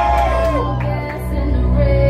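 Pop song playing loud through PA speakers, with a heavy bass and a sung vocal line that falls away about half a second in.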